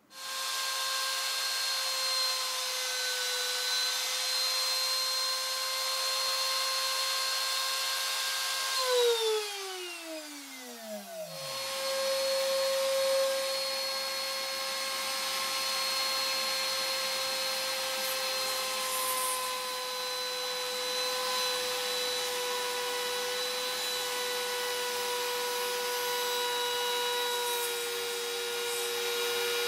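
Bosch PMR500 trim router mounted in a router table, running at high speed with a steady whine while a bearing-guided bit trims a plastic pickguard. About nine seconds in the motor is switched off and winds down, its pitch falling steeply, and shortly after it runs again at full speed.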